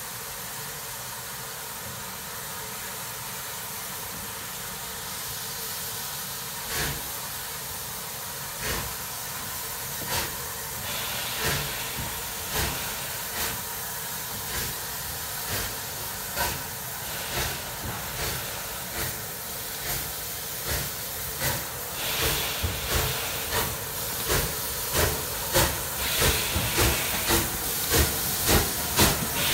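Steam locomotive pulling away with a train: a steady hiss of steam, then exhaust chuffs starting about seven seconds in, slow at first and quickening to about two a second, growing louder as it approaches.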